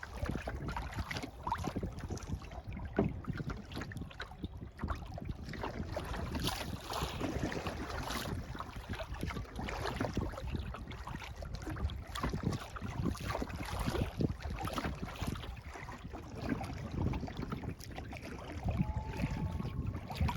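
Kayak paddle splashing and dripping in lake water, with water lapping at the hull and wind rumbling on the microphone.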